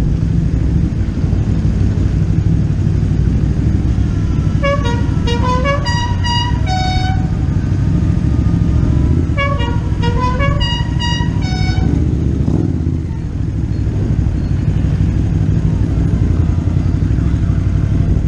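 Steady low rumble of motorcycle engines on the move, with a multi-note musical horn playing the same short tune of quick stepped notes twice, about four seconds apart.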